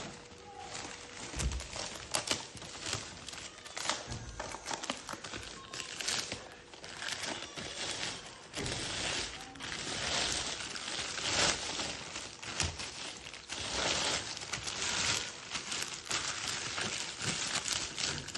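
Plastic wrapping being pulled off a new motorcycle tyre by hand and bunched up, crinkling with a steady run of small crackles.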